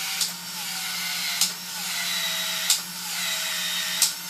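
Cordless PEX expansion tool cycling in the end of 3/4-inch PEX pipe: a steady motor whir that sags in pitch through each stroke, with a sharp click about every 1.3 seconds, four times, as the head expands the pipe and resets for the next stroke.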